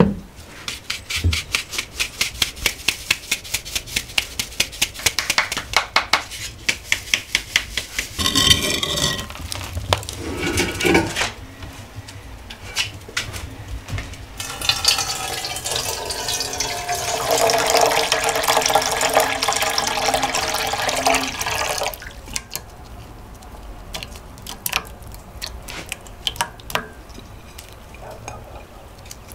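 Wooden drum sieve shaken over an enamel basin to sift flour, rattling in quick, even strokes, about five a second. About fifteen seconds in, water is poured into a vessel for several seconds, the sound rising in pitch as it fills.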